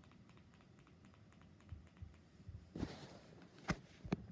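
Faint background noise, then a short rustle about three seconds in and two sharp clicks near the end.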